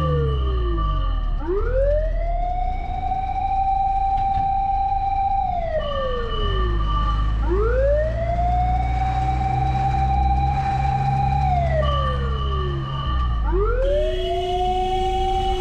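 Emergency vehicle siren sounding a slow wail: it rises, holds for several seconds, falls, then starts again, about three times. A steady low engine rumble runs underneath.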